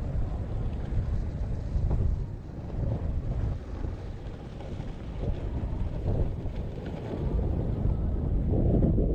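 Wind buffeting a GoPro's microphone while skiing downhill at about 35 km/h: a gusty, unpitched rumble that grows louder over the last couple of seconds.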